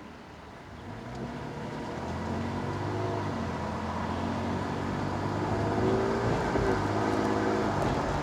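2020 Toyota Tacoma TRD Off-Road driving, its road and drivetrain noise getting louder from about a second in, with steady tones carried through. This is the rear whine that the owner suspects comes from the rear differential.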